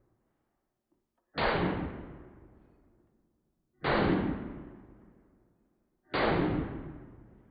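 A 9mm Glock pistol with a Radian Ramjet compensator firing three times, about two and a half seconds apart; each report starts sharply and fades away over a second or so.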